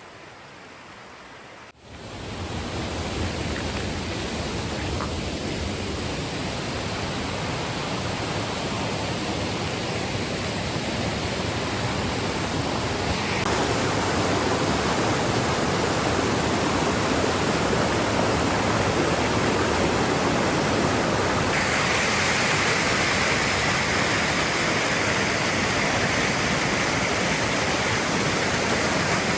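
Steady rushing water of small waterfalls and cascading streams. It swells in about two seconds in after a quieter moment, then steps up twice, growing slightly louder and then brighter and hissier.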